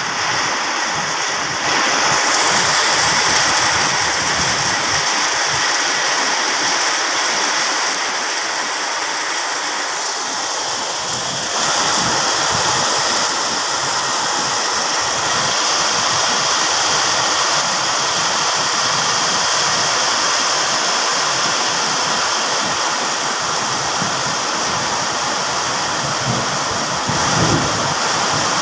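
Heavy rain falling, a steady, dense hiss that gets louder about two seconds in and again near twelve seconds.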